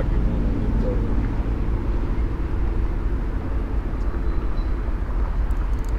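Steady low rumble of road traffic on the bridge over the channel.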